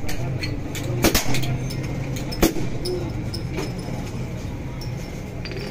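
A steady low hum of street background noise, with a few sharp clinks of glassware about a second in and again midway.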